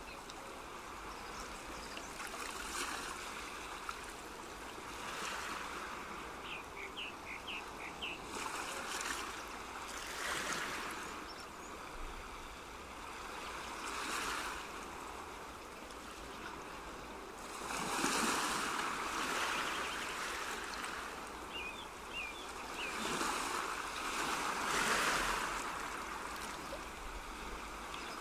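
Water ambience: rushing water that rises and falls in swells every few seconds, with a few short, high bird chirps.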